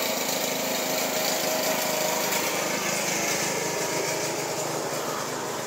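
Steady drone of a small engine, with faint held tones that sink slightly in pitch.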